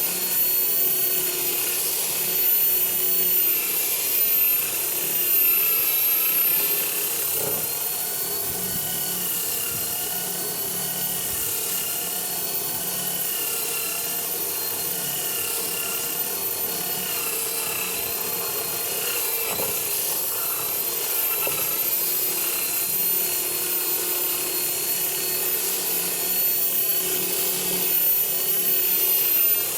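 Electric drill converted into a sander, running steadily with its sandpaper rubbing against wood: a continuous motor whine over a steady scratchy sanding noise, its pitch wavering slightly. This is the finer-grit sanding pass.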